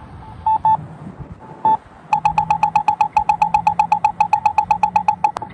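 Campbell accessible pedestrian signal push button sounding its locator beep about once a second, then about two seconds in breaking into a fast ticking of about ten beeps a second for some three seconds. The fast ticking is the crossing's walk-interval signal, the tone the uploader calls a bubbling noise.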